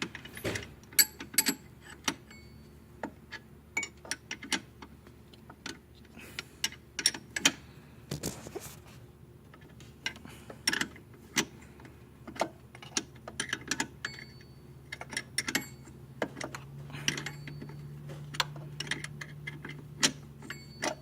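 A size 15 wrench working on alternator mounting bolts: irregular sharp metal clicks and clinks, some louder knocks among them, as the bolts are tightened by hand.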